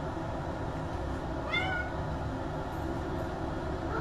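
A cat meows: one short, high-pitched meow that rises then levels off about a second and a half in, and another starting right at the end, over a steady low background noise.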